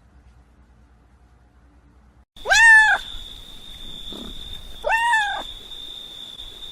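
A cat meowing twice, each a short high call about half a second long that rises and then falls in pitch, the first a little over two seconds in and the second about two and a half seconds later. A steady high-pitched whine starts with the first meow and runs under both.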